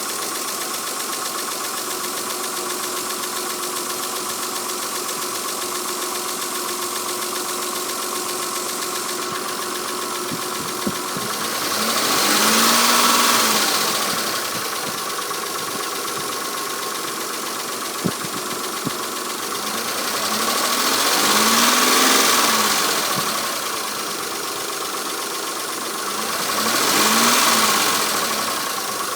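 Mitsubishi 6G72 24-valve V6 idling with the knock of worn hydraulic lifters, revved up and back down three times. A few sharp clicks are heard between the revs.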